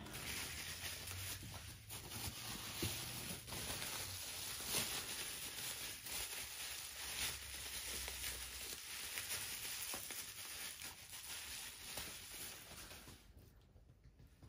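Packing material rustling and crinkling with many small crackles as the next tooth is unwrapped. It runs continuously, then stops abruptly near the end.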